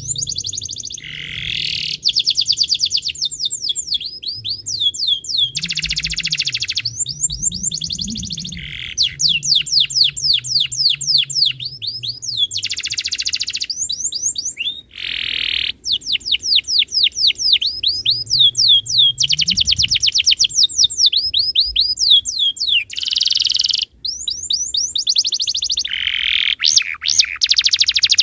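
Domestic canary singing a long, continuous song: fast trills of rapidly repeated notes, switching to a new trill or rolling phrase every second or two.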